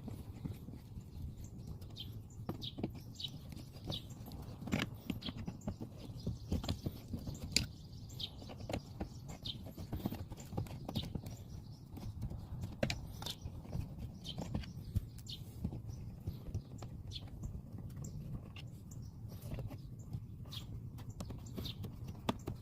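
Irregular small clicks and taps of hand work on a car's fog light assembly as a T9 Torx driver takes out its three mounting screws, over a steady low hum.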